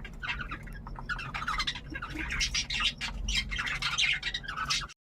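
Cockatiel squawking and chattering in a rapid, continuous run of harsh calls over a low steady hum, cutting off abruptly near the end.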